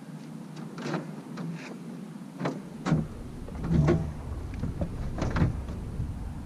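Irregular knocks and scrapes of fishing gear being handled in a boat, about six in all, over a steady low hum, with a low rumble joining about a third of the way in.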